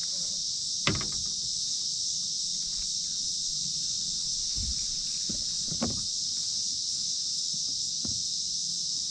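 A steady, high-pitched insect chorus, with a few short knocks and clunks against the kayak as a crappie is put into the fish box and the lid is handled. The loudest knocks come about a second in and near six seconds.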